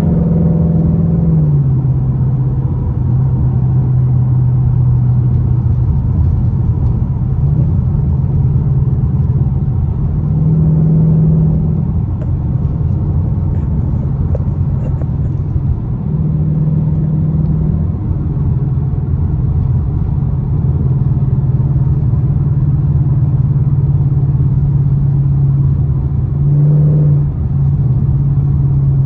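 Ford Mustang GT's 5.0-litre V8 and exhaust heard from inside the cabin while cruising: a steady low drone that rises in pitch and settles back several times as the throttle is eased on and off.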